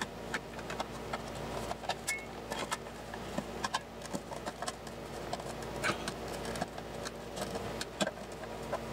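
Black plastic housing of an electronic sewing machine foot pedal being handled and fitted back together: irregular light clicks and knocks of plastic parts.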